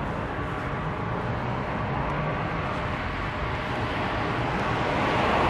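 ATR 72-600's twin Pratt & Whitney PW127M turboprop engines and propellers on final approach: a steady drone with a faint steady tone, growing louder toward the end as the aircraft nears.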